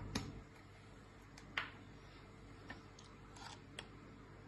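A metal spoon stirring and tapping in a plastic tub of liquid ice cream mix as food colour is worked in. It makes a few light, sharp clicks, the loudest about a second and a half in, over a faint low hum.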